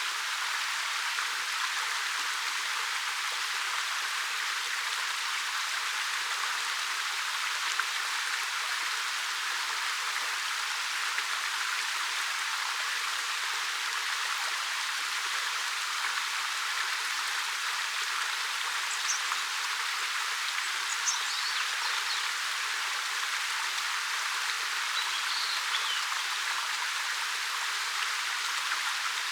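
A 13 m waterfall pouring over a black rock face: a steady, even hiss-like rush of falling water, with a few faint high chirps about two-thirds of the way in.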